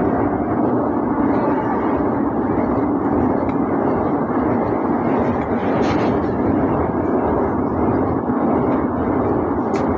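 Passenger train running across a steel truss bridge, heard from on board: a steady, loud rumble of wheels on rails. A sharp click comes about six seconds in and another near the end.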